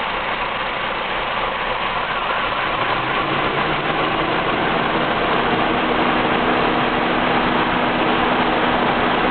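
Car engine idling roughly, a steady running sound that grows a little louder about four seconds in. The idle is unsteady enough to shake the whole engine, with manifold vacuum fluctuating between 13 and 15 inches.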